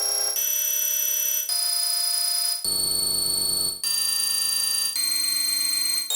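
A string of synthesized electronic tones made as custom rocket-ship sound effects: each chord-like tone holds for about a second, then cuts straight to a new set of pitches, about five changes in all, with a noisy low rumble under the one in the middle.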